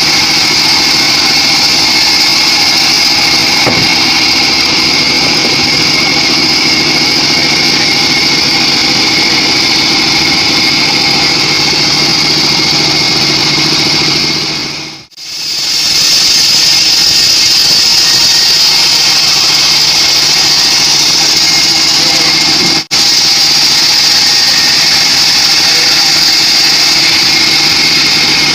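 Homemade band sawmill running steadily, a loud machine drone with a strong high hiss as the blade rips a teak log. The sound fades out and back in about halfway, and cuts out for an instant near the end.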